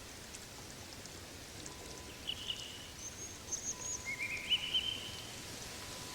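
Woodland ambience of steady rain hiss with scattered drips, over which a bird gives a few short chirps and quick rising trills from about two to five seconds in.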